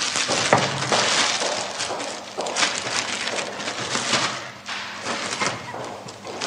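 Clothes and a bag rustling as they are handled and packed, with small knocks and scrapes among them.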